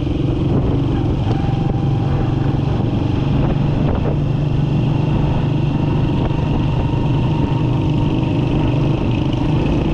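Small motorcycle engine running steadily at cruising speed while riding, heard from on the bike, with rushing wind noise.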